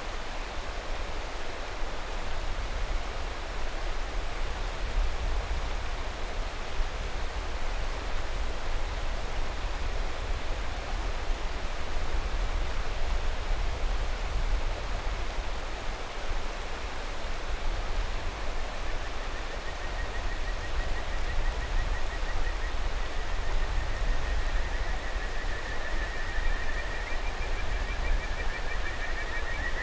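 Mountain river rushing steadily. About two-thirds of the way in, kajika frogs (Buergeria buergeri) start their high, whistle-like trilling calls, growing louder near the end with two calls overlapping.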